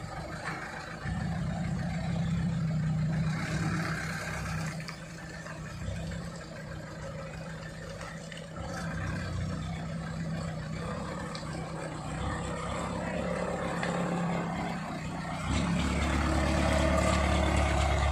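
Truck engines running on a muddy track, rising and easing. About three-quarters of the way in a truck's engine gets much louder and lower as it moves past close by.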